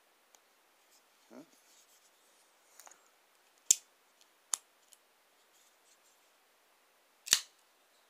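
Gerber Highbrow Compact folding knife being worked by hand: sharp metallic snaps as the blade swings open and locks, and then closes. There are three loud snaps and a fainter one, with light handling rustle before them.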